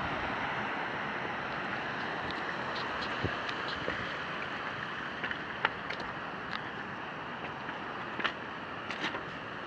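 Steady rushing of a mountain stream tumbling over rocks, with scattered clicks and crunches of boots on a stony path from about three seconds in.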